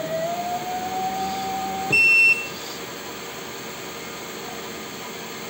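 A WEISAN WM210V800 mini metal lathe starting up with a motor whine that rises slowly in pitch for about two seconds and then stops. A short, high electronic beep from its controller follows, and the machine then runs on with a steady low hum.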